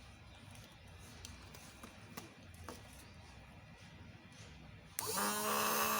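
A few faint clicks, then about five seconds in a 12 V DC bilge pump motor switches on abruptly and runs with a loud, steady electric whine.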